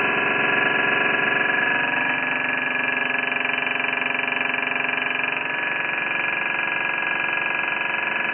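Homemade high-voltage spark-gap circuit running, with a steady electrical buzz made up of many overtones. The tone shifts slightly about two seconds in and again a little past five seconds.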